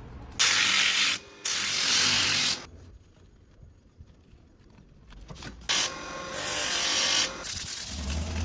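Abrasive rubbing strokes of a hand tool on the work, each lasting about a second and stopping sharply: two near the start and two more after a pause in the middle, with a low hum under the last stroke.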